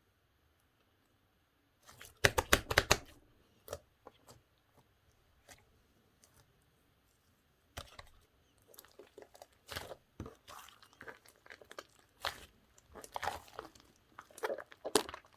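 Slime being squeezed and stretched by hand, making sticky crackles and small pops: a quick, loud run of crackles about two seconds in, then a few isolated clicks, then more scattered crackling through the second half.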